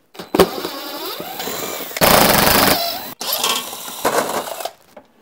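Cordless impact driver hammering as it backs out the fasteners of a van's under-engine cover, in two long runs with a brief break about three seconds in, loudest just after two seconds.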